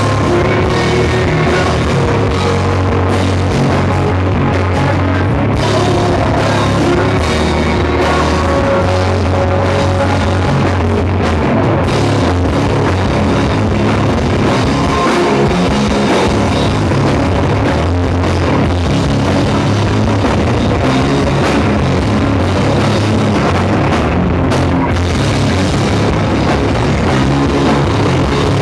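Rock band playing live, drum kit and guitars together at a loud, steady level.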